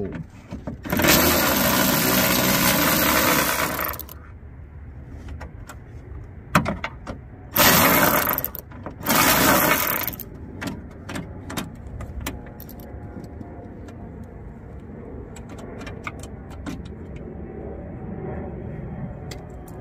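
Cordless electric ratchet running in three bursts, one of about three seconds and two short ones, as it backs out 10 mm bolts. Afterwards, scattered light clicks follow.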